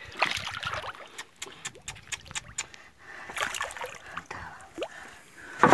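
Water splashing and trickling against a boat's hull as a hooked ruby snapper is held at the surface by its leader, with scattered sharp taps and knocks.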